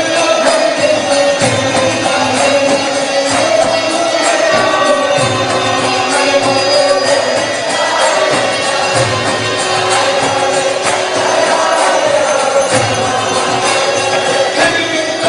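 Kirtan: voices chanting a devotional mantra to a melody, with hand cymbals striking in a steady rhythm.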